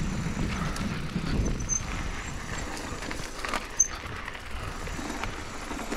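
GT Aggressor Pro mountain bike rolling over a rocky dirt trail: tyre noise and rattling, with a sharp knock about four seconds in.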